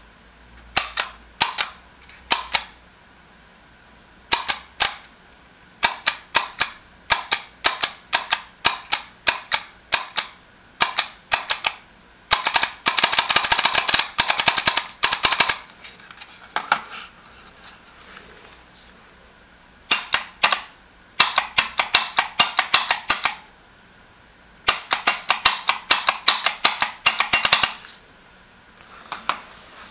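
Small contactor clacking in and out as its coil lead is tapped by hand against a switching power supply's terminal. There are spaced single clacks at first, then long runs of rapid chatter near the middle and again in the second half, as the coil is switched on and off quickly.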